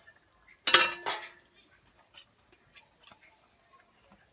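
Metal utensil clanking against a cooking pot of stew: a loud clatter about a second in with a brief ring, then light scattered taps.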